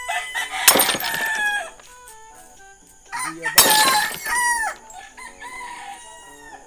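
A rooster crows twice, about three seconds apart, over light background music.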